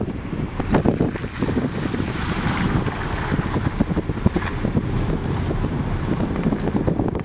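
Wind buffeting the microphone from a moving car, over the low rumble of the car driving slowly on the grounds' roads.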